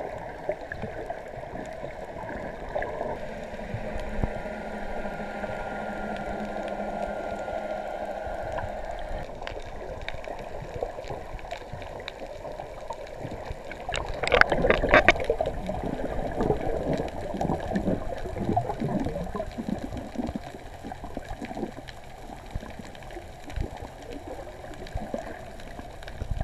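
Muffled underwater water noise picked up by a camera in its waterproof housing: a steady gurgling wash, with a louder bubbling rush lasting about a second roughly halfway through.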